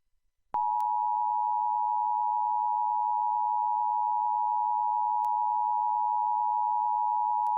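Emergency Alert System attention signal: a steady two-tone alarm tone at 853 and 960 Hz that starts abruptly about half a second in and holds unbroken, marking the start of an EAS alert broadcast.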